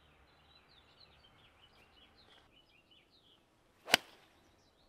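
A golf club striking a teed-up ball on a full swing: one sharp crack about four seconds in.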